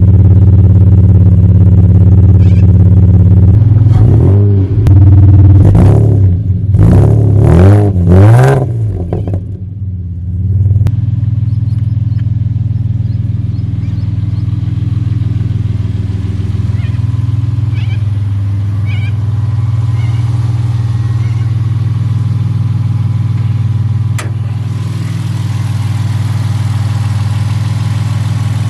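Toyota 2JZ-GE inline-six, swapped into a 1975 Toyota Crown, idling steadily, then revved in several quick blips about four to nine seconds in before settling back to a steady idle. The freshly swapped engine runs smoothly.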